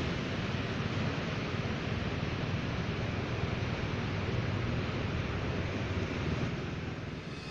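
Steady outdoor background noise: an even rushing hiss with a low rumble underneath, and no distinct events.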